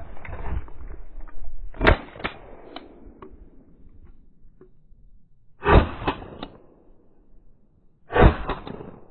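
Three shotgun shots at ducks in flight, one about two seconds in, one near six seconds and one just after eight seconds, each trailing off briefly.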